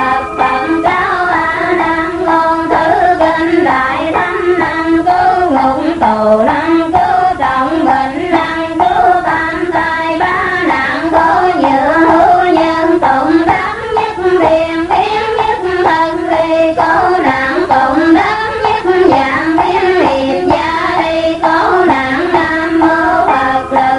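Vietnamese Cao Đài devotional music: a steady melodic passage of held notes stepping up and down, with no chanted words.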